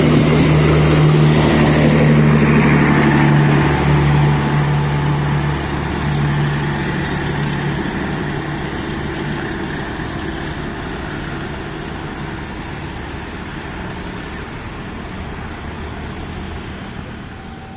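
Passenger train coaches rolling past on steel rails and moving away: a steady rumble of wheels on track with a low hum, loudest at first and fading slowly as the last coach recedes.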